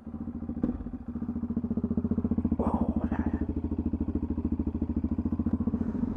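Yamaha XT660X's 660 cc single-cylinder four-stroke engine starting up and idling with a fast, even thudding pulse.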